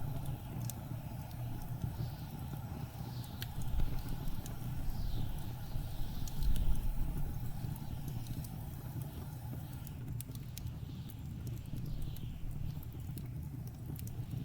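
Blizzard wind rumbling low and steady, with a wood fire crackling: scattered sharp pops and snaps. Short high whistles falling in pitch recur every second or so.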